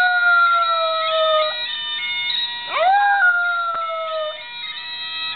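A dog howling along to a bagpipe ringtone. The bagpipe tune plays steadily throughout. One long howl slides slowly downward and fades about a second and a half in, and a second howl rises about three seconds in, then falls away.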